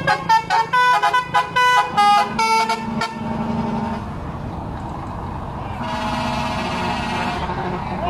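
Lorry 'telolet' multi-tone horn playing a quick tune of short notes, each a fraction of a second, for the first three seconds, then the truck's engine running as it pulls forward.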